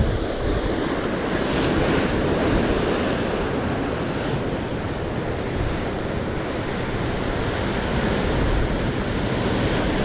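Sea surf breaking and washing against a rocky shore, a steady rushing noise.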